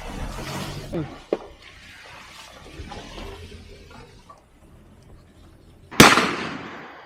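A single shotgun shot about six seconds in, sharp and very loud, its report dying away over about a second.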